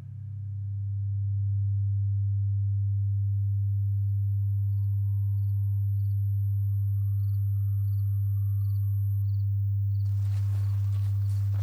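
A steady, pure low drone of sound design fades in over the first second or so and then holds unchanged. Faint cricket-like chirps repeat about twice a second from about four seconds in, and a rustle of noise joins near the end.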